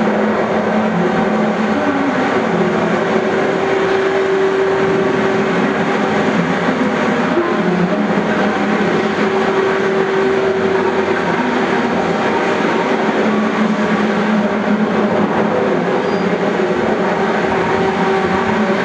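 A loud, steady rumbling drone with low held tones that swell and fade every few seconds.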